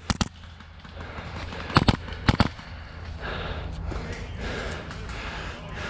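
Airsoft rifle firing in short bursts of two or three shots: one burst at the start and two more about two seconds in, in quick succession.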